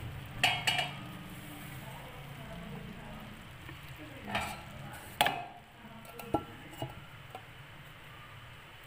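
Metal pot lid and cloth being handled to seal a pot of rice for dum: sharp clinks and knocks about half a second in and again around four and five seconds, then a few lighter taps.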